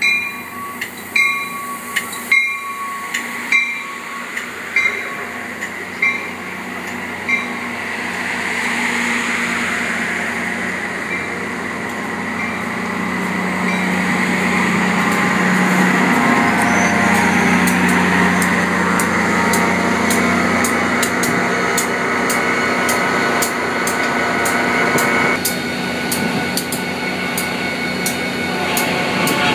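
Shore Line East commuter train rolling slowly past, its wheels clicking over rail joints about once a second for the first several seconds. Then a steady mechanical hum from the train builds, loudest about halfway through, and eases off near the end.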